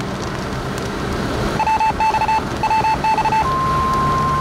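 An electronic emergency alert tone: two quick clusters of short beeps, then a single steady high tone from about three and a half seconds in.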